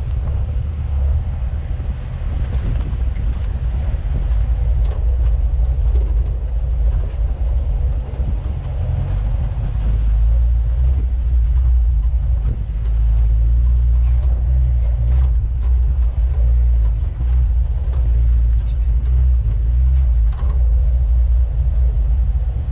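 4x4 off-road vehicle running steadily at low speed on a dirt trail, its engine and drivetrain a low rumble, with many short clicks and knocks scattered through it.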